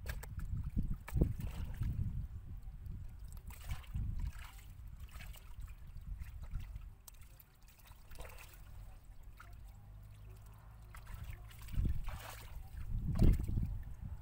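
Hands sloshing and groping in shallow muddy water, with irregular splashes and squelches over a low rumble; the loudest bursts come about a second in and near the end.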